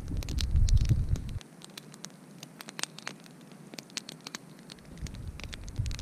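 Wood campfire crackling with many irregular sharp pops. A low rumble of wind on the microphone runs under it for about the first second and a half, stops suddenly, and comes back near the end.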